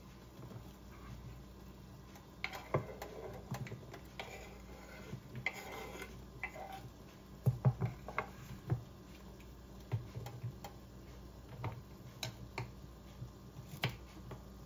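Covered frying pan with beef strips simmering under a glass lid, giving irregular small ticks and pops, some in quick clusters.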